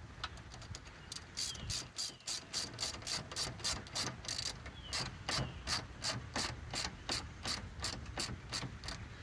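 Socket ratchet clicking in a steady run of quick strokes while tightening the clamp on a new upper radiator hose.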